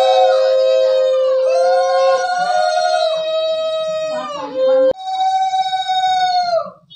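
Conch shells (shankha) blown in long, steady held notes, two sounding together at slightly different pitches. There is a short break about five seconds in, then one more long note that sags in pitch as the breath runs out, near the end.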